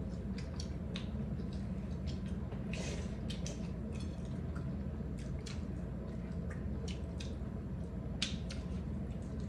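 Eating at close range: scattered wet smacks and clicks of chewing and mouth sounds, over a steady low hum.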